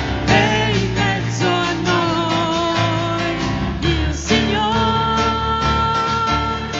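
Music: a song with a singing voice over instrumental accompaniment, the voice holding long notes.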